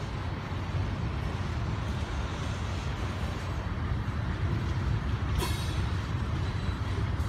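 Coal train's hopper cars rolling past: a steady low rumble of wheels on rail, with a brief high-pitched wheel squeal about five seconds in.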